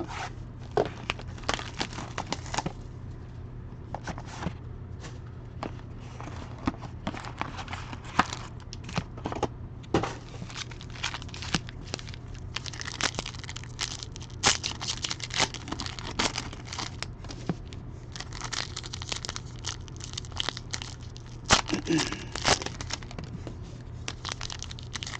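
Trading-card packs and their wrappers being torn open and handled, with irregular crinkling and crackling rustles of foil and plastic, and a light snap or tap now and then.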